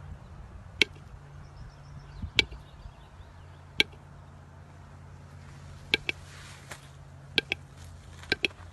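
Sharp clicks or taps, irregular, about ten of them, some in quick pairs, over a faint steady low hum.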